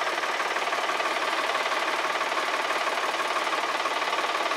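Tractor engine running steadily, with a rapid, even rhythm.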